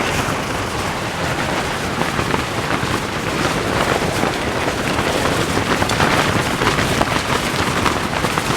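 Heavy rain pouring down: a dense, steady hiss of countless drops striking.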